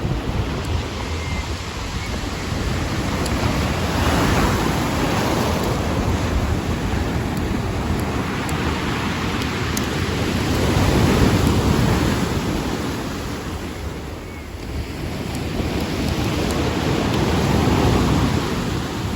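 Sea waves washing in, the surf swelling and fading about every six or seven seconds over a steady low rumble.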